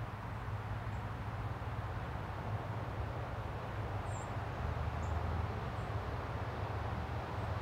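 Steady outdoor background noise with a constant low hum, and a few faint, very high chirps scattered through it, the clearest about four seconds in.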